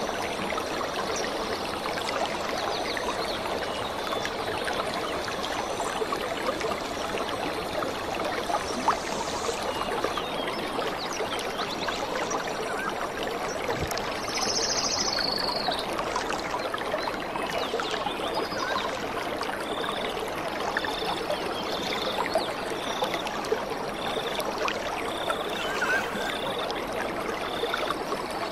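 Steady rush of a waterfall and rocky stream, with scattered small splashes and knocks. In the second half a short high pip repeats about every two-thirds of a second.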